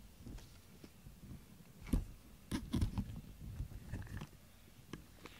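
A brush being stroked through a cat's fur: several soft, irregular rustling strokes, with the strongest ones about two seconds in and again around three seconds in.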